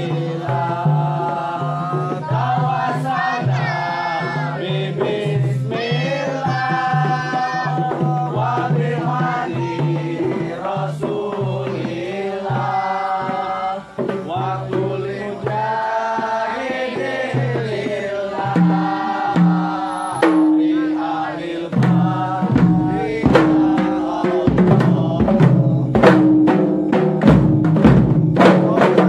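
Singing with hand-struck kompang frame drums. About two-thirds of the way through, the drumming grows louder into sharp, rapid, interlocking beats that build to the end.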